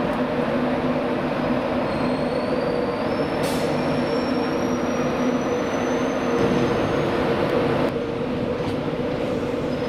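East Coast InterCity 225 train, with its Mk4 driving van trailer leading, running slowly along the platform, with a thin squeal that rises gradually in pitch over several seconds above a steady hum. Near the end the sound changes abruptly to a Scotrail Class 380 electric multiple unit coming in.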